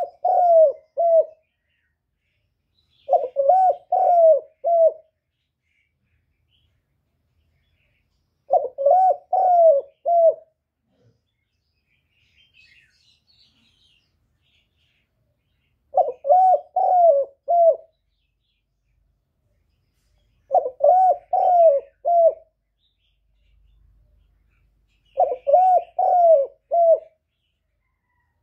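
Spotted dove cooing: a repeated phrase of three or four low coos, given six times with pauses of a few seconds between.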